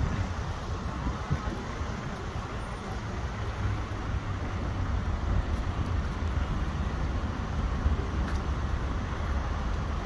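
Steady low rumble of outdoor city background noise, with no distinct events.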